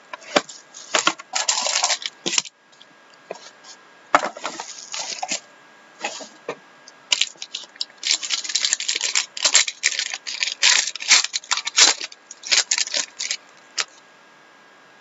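Plastic shrink wrap crinkling and cardboard packaging being handled as a box of trading cards is unwrapped and opened, in irregular bursts with light clicks and taps.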